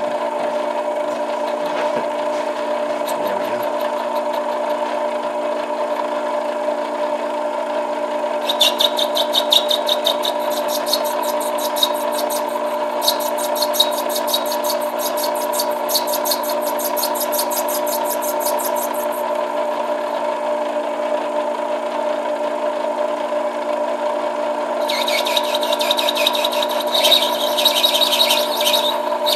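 Small metal lathe running steadily with a whining drive, its cutting tool taking light passes on an acrylic pipe stem. The cutting adds a fast, regular high scratchy chatter from about a third of the way in to about two-thirds, and again near the end.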